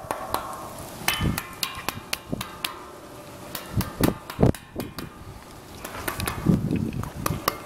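A bronze horse sculpture, cast to look like driftwood, tapped and knocked by hand in a quick irregular run. Several strikes leave a short metallic ring, the sign that the 'wood' is actually metal.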